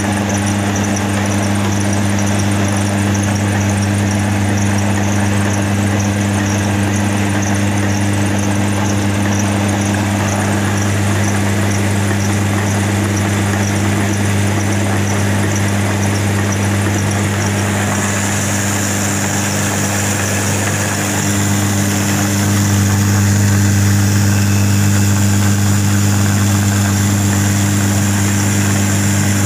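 Atta chakki (stone flour mill) running and grinding, a loud steady machine hum. A higher whine joins a little past halfway, and the sound grows a little louder about three-quarters of the way through.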